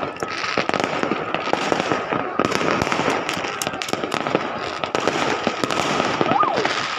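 New Year fireworks going off continuously: a dense stream of rapid pops and crackles. A faint steady high tone runs beneath, and a brief rising-and-falling whistle comes near the end.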